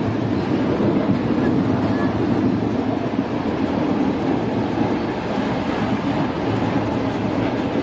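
Steady churning and splashing of river water as several people wade through it and push a half-submerged SUV.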